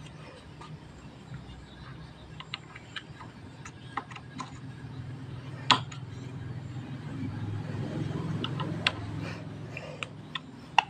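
Scattered small clicks and taps of battery-cable connectors and terminals being handled on an electric bike's lead-acid battery pack, with one sharper click a little past halfway. A steady low hum runs underneath, growing louder in the second half.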